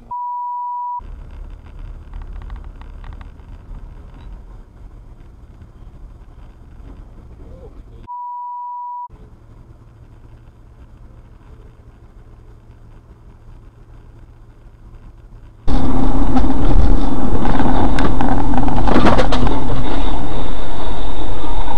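Dashcam audio of driving: low cabin road noise, broken twice by a steady one-second high beep. Two thirds of the way through it switches to a much louder, harsh rush of noise with a sharp hit near the end.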